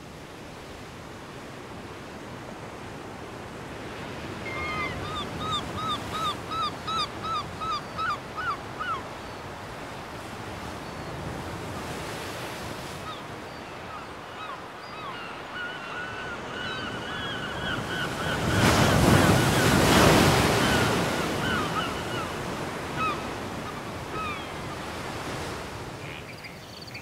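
Ocean surf and wind on a rocky coast, with one wave surging loudest about two-thirds of the way through. Birds call over it: a quick run of short rising calls, about two a second, from about five to nine seconds in, then scattered calls later.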